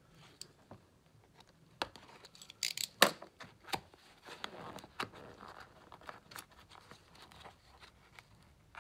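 Cardboard retail box being pried and torn open by hand, with scattered clicks and scrapes. A sharp snap comes about three seconds in, followed by rustling and tearing of the cardboard flap.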